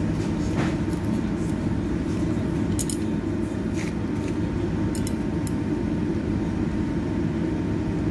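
Steady low rumble of a ventilation fan, with a few faint light clicks as chopsticks set salmon sashimi slices onto crushed ice.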